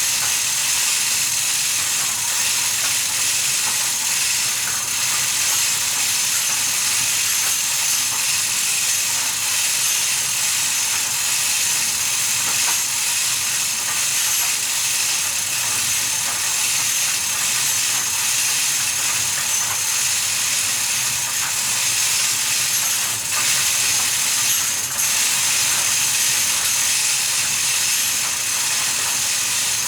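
Steady, even hiss with no rhythm or pitch changes, and a couple of faint clicks about three-quarters of the way through.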